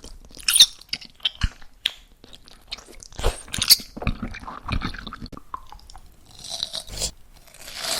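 Close-miked ASMR eating: crisp crunching bites followed by chewing, with a few sharp crunches standing out above the steady mastication.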